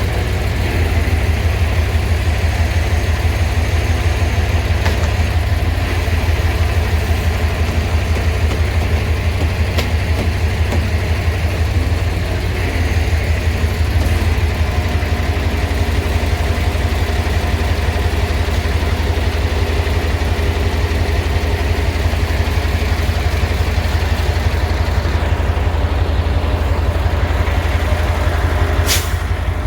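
Heavy truck diesel engine running steadily at a low, even beat, as on a crane truck during unloading work. A single sharp click sounds near the end.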